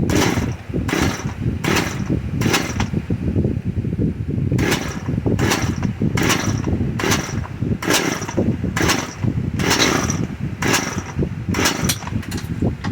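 Two-stroke Stihl MS 193 T chainsaw being pull-started again and again on a splash of gasoline, a sharp burst with each pull about once a second, with one short pause after the first four. It does not settle into a steady run.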